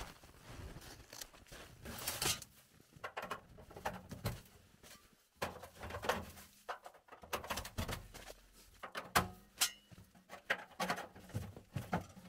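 Irregular metal clinks and knocks as a Caminus M stainless-steel tent stove is unpacked, its pipe sections and fittings handled against the stove body, amid rustling.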